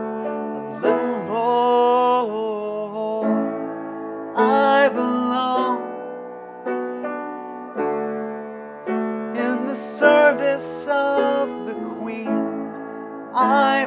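Piano playing sustained chords, with a man's voice singing long, wavering held notes over it in three phrases.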